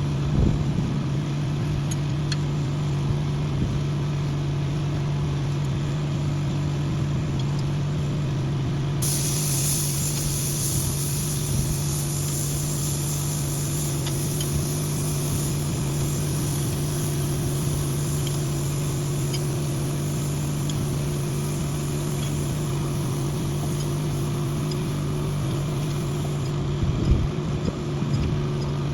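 An engine or machine running steadily at a constant pitch, with a high hiss joining about nine seconds in and cutting off near the end.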